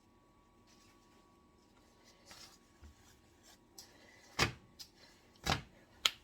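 Kitchen handling noises: faint rustling, then a few sharp knocks in the last two seconds, like things being set down or bumped on a counter.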